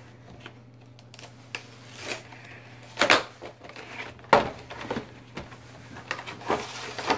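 A Pokémon card collection box being handled and opened: irregular clicks, taps and rustling of its packaging. The loudest come about three seconds and four and a half seconds in.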